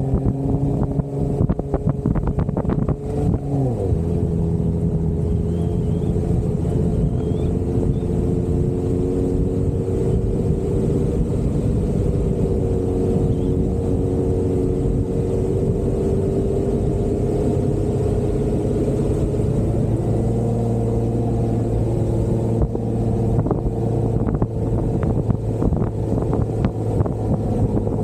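Jeep Wrangler engine running steadily while driving off-road. The engine note dips and settles about three seconds in, with uneven knocks in the first few seconds.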